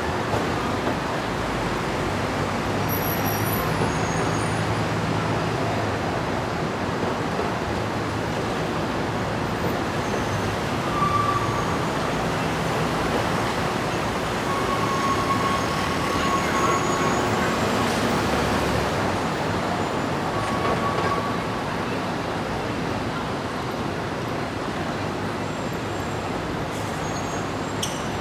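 Dense city street traffic: a steady wash of engine and tyre noise from many cars, buses and trucks, with a heavy engine hum low down in the first few seconds and a few short high tones coming through the traffic near the middle.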